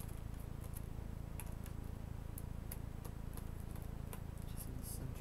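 Small precision screwdriver turning screws out of a Chromebook's plastic bottom case: irregular light ticks and clicks as the bit works the screw heads, over a steady low hum.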